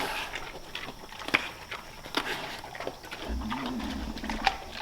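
Pigs eating apples: a run of sharp crunching clicks, with a low grunt about three seconds in.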